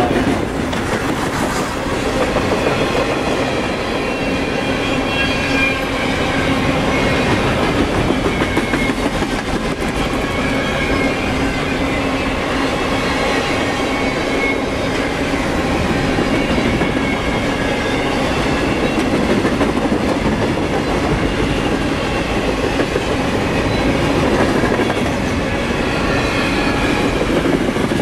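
Freight cars loaded with waste containers rolling past at close range: a steady rumble with the clickety-clack of wheels over the rail joints. Thin high wheel squeals come and go over it.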